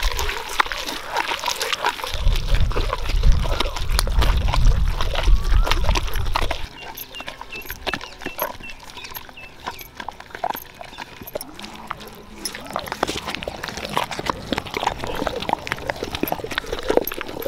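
Wet grinding on a stone grinder: a cylindrical stone pestle squelching and scraping through a paste of tomatoes, onion and turmeric, with frequent knocks of stone on stone. A heavy low rumble runs for about four seconds near the start.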